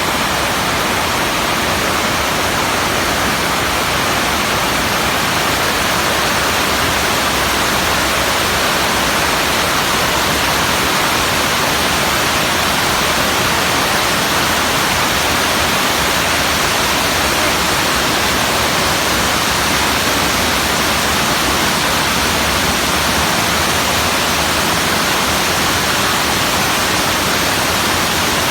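Fukiware Falls, water rushing over the falls in a loud, steady, unbroken rush of noise.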